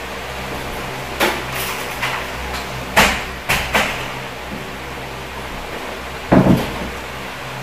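Interior door being opened and shut: a run of clicks and knocks from the handle, latch and door, the loudest a double knock about six seconds in as it closes. A steady electric fan hum runs underneath.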